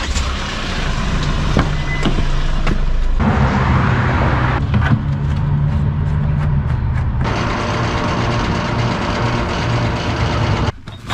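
A motor vehicle engine running with a steady low hum. The sound changes abruptly about three seconds in and again about seven seconds in.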